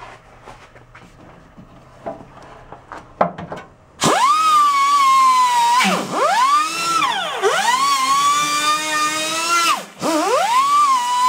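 Handheld wire-wheel grinder starting about four seconds in with a high whine, scrubbing old seam sealer off a sheet-metal flange. The pitch drops and recovers several times, and the tool cuts out briefly near ten seconds before spinning back up. Light handling clicks come before it starts.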